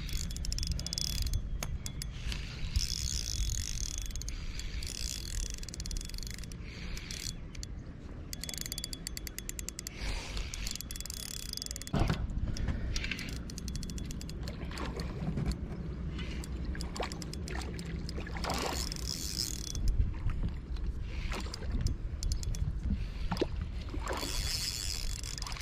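Spinning reel cranked in bursts, its gears ticking rapidly as line is wound in against a hooked salmon during the fight, over a steady low rumble.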